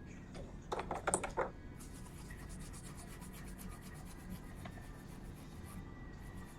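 A small tool scratching and rubbing lightly over a circuit board during micro-soldering work: a few sharp clicks about a second in, then a fine, fast scratchy rubbing for several seconds.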